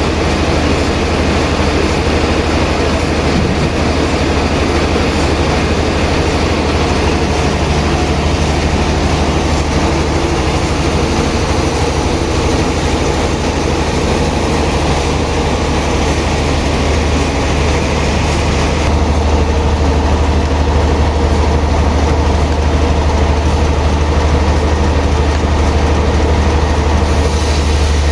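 Sawmill machinery running steadily with a loud, deep hum under a noisy din. About 19 seconds in the sound changes: the deep hum gets louder and the higher noise drops away.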